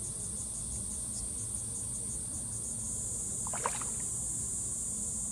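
Summer insects buzzing steadily in a high pitch, pulsing faintly for the first few seconds. There is a low rumble underneath and one short, sharp sound about three and a half seconds in.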